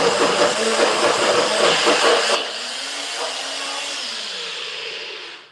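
Small electric food processor running at full speed, blending edamame, miso, lemon and olive oil into a chunky dip. About halfway through it gets noticeably quieter, and it stops just before the end.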